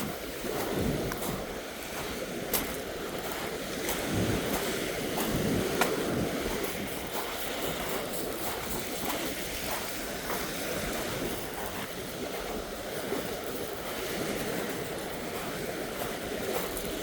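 Surf washing steadily onto a rocky shore, with wind on the microphone and scattered small clicks.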